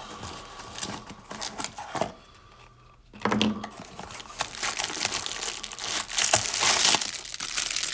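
Cardboard packaging and plastic bags rustling and crinkling as hands dig through a box, pulling out a cardboard insert. It goes briefly quiet about two seconds in, then the scraping and crinkling grow louder, loudest near the end.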